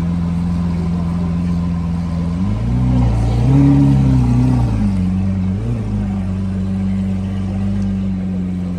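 An engine running steadily, revved up about two and a half seconds in, then dropping back to its steady note by five seconds, with one more short blip just before six seconds.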